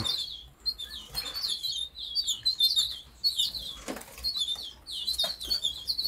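Caged canaries and finches chirping busily, many short, quick high chirps overlapping one another, with a couple of brief rustles.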